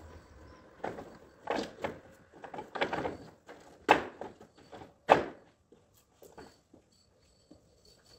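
Knocks, scrapes and crunching steps as a ladder is shifted against a wall and climbed. The sounds come in a loose run of sharp hits and short scuffs, loudest in the first five seconds, then only a few faint ticks.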